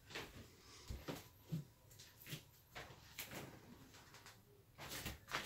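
Light, scattered knocks and clicks of kitchen things being handled and set down, a dozen or so in a few seconds, with a louder pair near the end.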